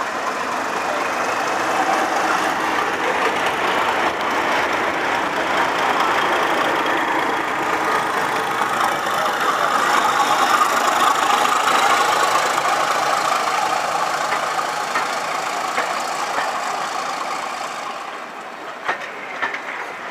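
Class 31 diesel-electric locomotive's English Electric V12 engine working under load as it pulls away and passes close by, swelling to its loudest about halfway through, then fading as it moves off. A few sharp clicks from the coach wheels over the rail joints come near the end.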